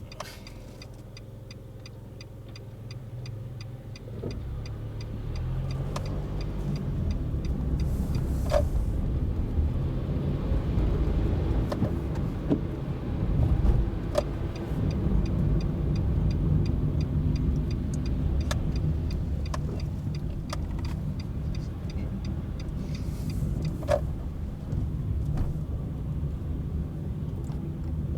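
A car's turn-signal indicator ticking steadily inside the cabin while the car idles quietly. A few seconds in, engine and tyre noise rise as the car pulls away and keeps driving, with a couple of sharp knocks along the way.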